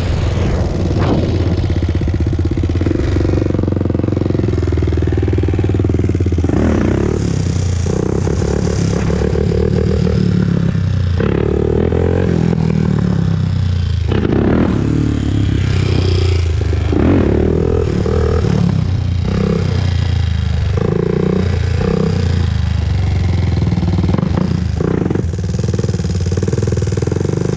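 Honda TRX400EX quad's single-cylinder four-stroke engine running under way, its pitch rising and falling again and again as the rider accelerates and eases off.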